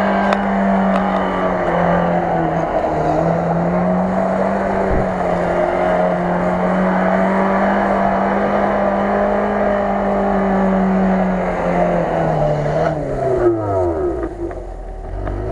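Lada Niva's four-cylinder engine held at high revs under load while the car spins tight circles on grass. The pitch stays nearly steady with small dips for about twelve seconds, then the revs fall away near the end.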